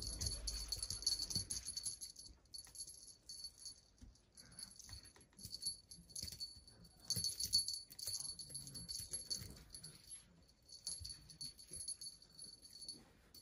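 Small bell on a feather wand cat toy jingling in repeated bursts as the wand is shaken, stopping and starting.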